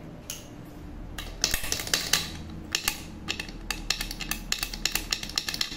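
Knife blade scraping and clicking against a pressure cooker lid around its valve, in short irregular metallic strokes several a second, starting about a second in: clearing out the clogged holes in the lid.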